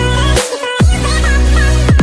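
Electronic dance music with deep sustained bass notes and falling bass drops, about every second, under a wobbling synth melody.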